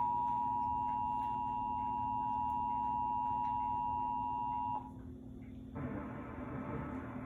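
Emergency Alert System attention signal: two steady tones sounding together, which cuts off sharply about five seconds in. It marks the start of an EAS test. About a second after it stops, a steady hiss begins.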